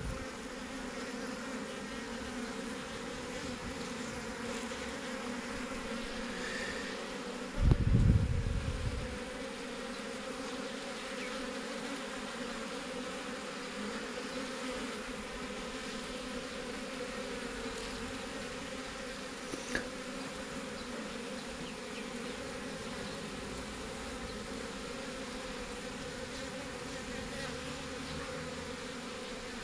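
A swarm of honeybees buzzing in a steady, continuous hum. A brief low rumble about eight seconds in is the loudest moment.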